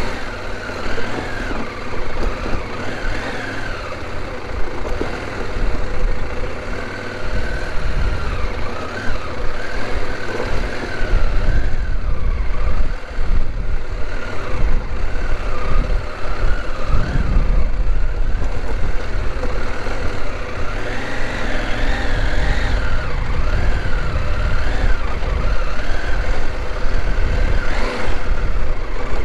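CFMoto 800 motorcycle's parallel-twin engine running at riding speed, its note rising and falling with the throttle. Heavy wind rumble on the microphone grows louder from about ten seconds in.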